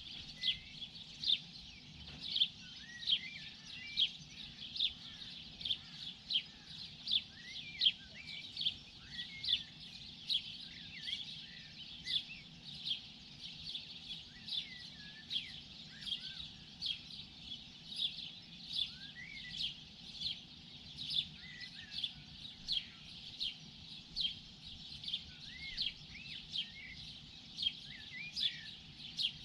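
Morning birdsong: short, high chirps repeating about twice a second, mixed with occasional lower whistled notes that slide up and down. A faint steady low hum lies underneath.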